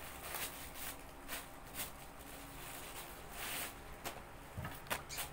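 Plastic packaging being handled, a clear plastic bag and a courier mailer rustling and crinkling in irregular short bursts.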